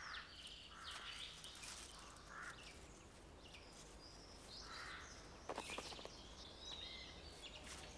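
Faint, scattered chirps and short calls of small songbirds, with a short run of soft clicks a little past halfway.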